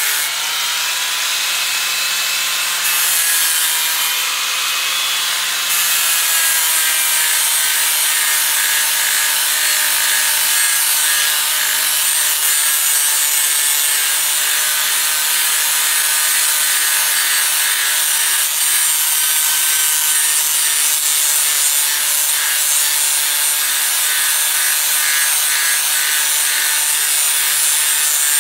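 Handheld angle grinder with an abrasive flap disc running against a steel katana blade, grinding rust off it: a steady, continuous abrasive hiss over the grinder's motor hum.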